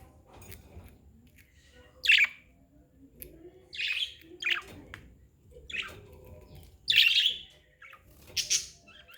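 Pet budgerigars chirping: short, sharp high chirps at irregular intervals, about six loud ones, the strongest about two seconds in and again near seven seconds, with softer chatter between.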